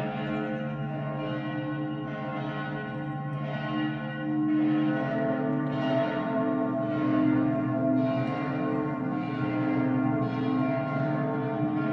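Church bells ringing, a new stroke about once a second, the tones ringing on and overlapping each other.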